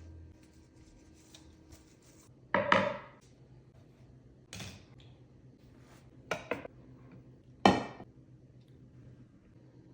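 Hard objects knocked and set down on a hard surface: about five short clatters, the loudest about three seconds in and near the end.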